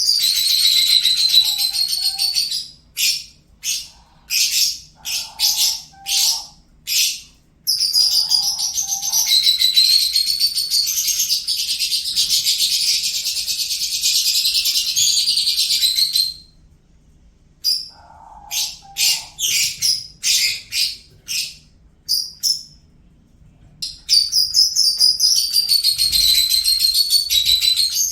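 Lovebird singing: long stretches of rapid, high chattering twitter alternate with runs of separate short chirps, about one to two a second.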